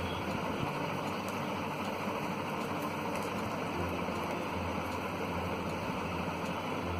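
Steady rushing background noise with a low hum underneath.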